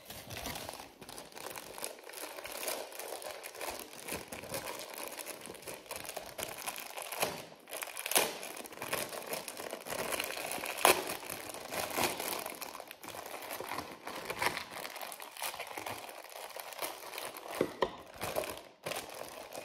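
Plastic packaging crinkling and rustling steadily in the hands as a small wrapped item is turned over and opened, with a few sharper crackles.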